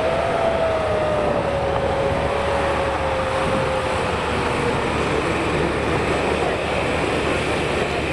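Range Rover climbing a muddy, snowy slope, its engine working under load. A single whine rises briefly at first, then slowly falls in pitch, over a steady rushing noise.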